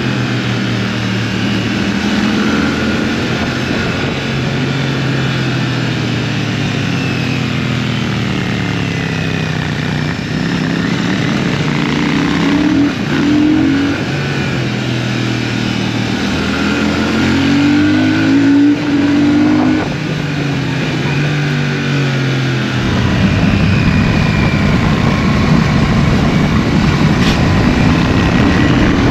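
Royal Enfield Shotgun 650's 648 cc parallel-twin engine heard from onboard while riding, its pitch rising and falling as the rider accelerates, rolls off and changes gear. About 23 seconds in, it drops under a steady rush of wind noise on the microphone.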